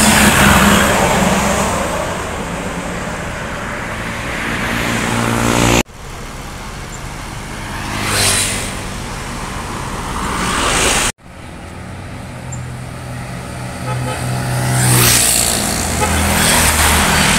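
Tour buses passing close by one after another, their engines running under road noise that swells as each goes past. The sound cuts off suddenly twice.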